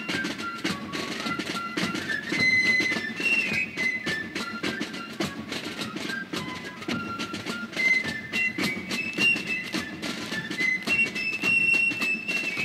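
Background music: a high, stepping melody line over a busy beat.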